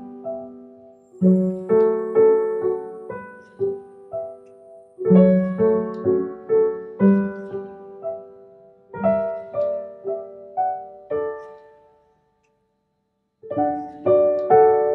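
Background piano music: a gentle melody of struck notes that fade out. The music cuts out completely for about a second and a half, twelve seconds in, then starts again.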